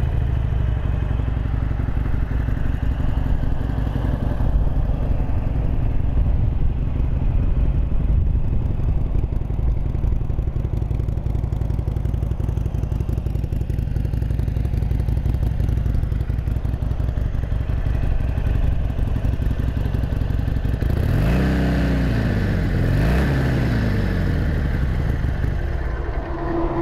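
A 2017 Harley-Davidson Sportster Iron 883's 883cc fuel-injected V-twin idling steadily. About three-quarters of the way through it is blipped twice, the pitch rising and falling each time, then settles back to idle.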